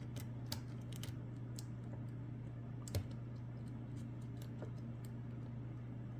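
Light, scattered metallic clicks and taps of a lock pick working the pins inside a Lockwood Twin brass padlock's keyway, with one slightly louder click about three seconds in, over a steady low hum.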